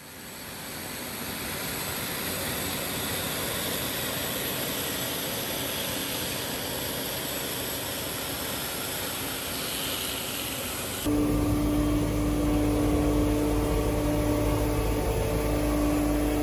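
Road machinery noise: a steady rushing roar, like a jet or blower, that fades in at the start. About eleven seconds in it cuts sharply to a heavier engine rumble with a steady hum.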